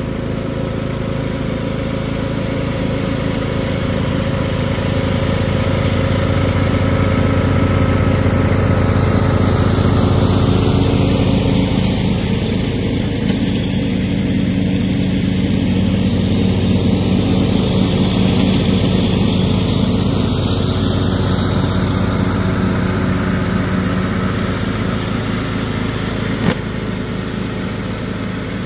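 John Deere riding lawn mower's engine running steadily while mowing, growing louder as it passes close by around the middle and fading as it drives away. A single sharp click sounds near the end.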